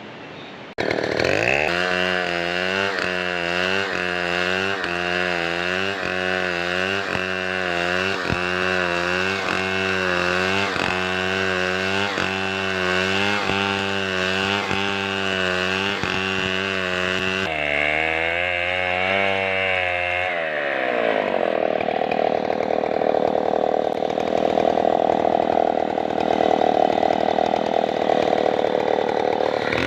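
Chainsaw running, its engine note wavering up and down about once a second. About twenty seconds in the note drops and the sound turns rougher.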